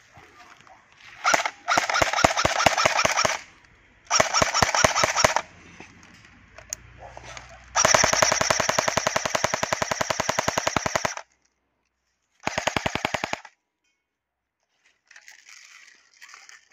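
Umarex Heckler & Koch UMP airsoft submachine-gun replica firing on full auto in four rapid bursts of evenly spaced shots. The third burst, about two-thirds through, is the longest at roughly three seconds, and the last is a short one of about a second.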